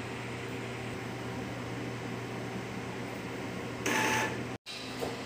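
Epson L3110 ink-tank printer running its power cleaning cycle: a steady low hum, with a louder whirring burst about four seconds in. Just after the burst the sound drops out completely for an instant.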